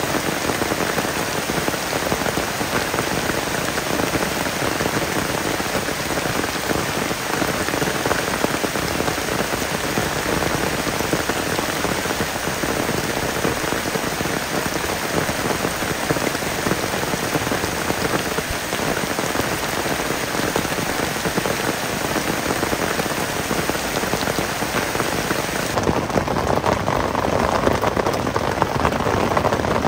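Heavy rain falling steadily on forest foliage and a tent, a dense even hiss. Near the end it changes abruptly to a duller, heavier drumming of rain on the tent heard from inside it.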